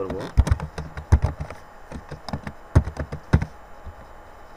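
Computer keyboard typing: a password being keyed in, an irregular run of key clicks with a few heavier strokes.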